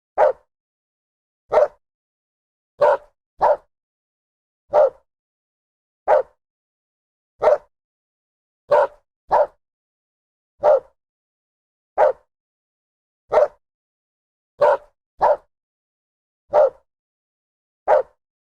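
A dog barking: single short barks about every second and a half, a few of them in quick pairs, with dead silence between.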